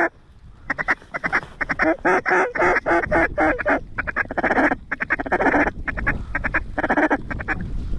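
Mallard duck calls blown in loud, rapid strings of quacks and feeding chatter to bring incoming ducks in to the decoys, starting under a second in and going on with only short breaks.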